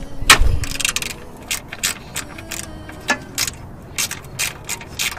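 Hand ratchet wrench clicking as it is worked back and forth to unbolt a fastener. The loudest click comes about a quarter second in, followed by about a dozen sharp clicks at uneven spacing.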